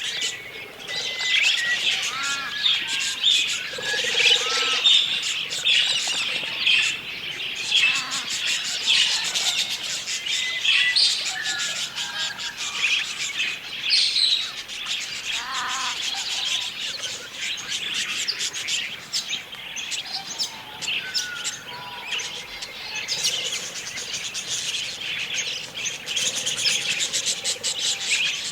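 A flock of budgerigars chattering: many overlapping high chirps and warbled calls throughout.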